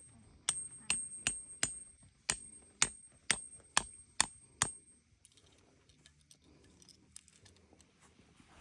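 A hammer driving a tent peg into the ground: about ten sharp strikes a little under half a second apart, each with a high ringing note, stopping about five seconds in.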